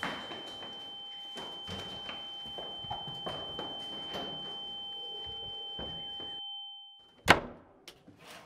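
Hurried footsteps and knocks over a steady high-pitched electronic tone, which fades out about seven seconds in. Then a door slams shut with a single loud bang, followed by two faint clicks.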